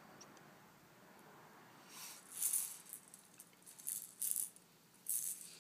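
A rattle shaken by hand in several short, loud bursts, starting about two seconds in.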